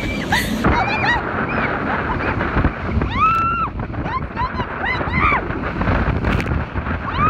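Wind rushing over a phone microphone as a rider slides fast down a tubing run on an inflatable tube, with a woman's high-pitched squeals and laughter: several short cries that rise and fall in pitch.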